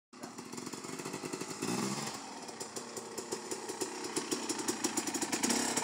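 Enduro dirt bike engine running at low revs, growing louder as the bike comes closer, with a brief rev about two seconds in.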